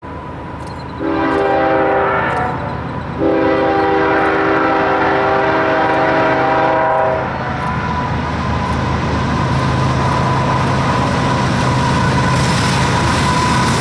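Diesel locomotive air horn sounding a short blast, then a long blast of about four seconds, over the steady, growing rumble of the CSX train approaching at track speed.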